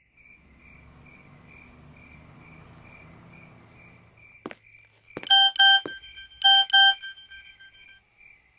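Mobile phone message alert: two quick double beeps about five seconds in, over crickets chirping steadily.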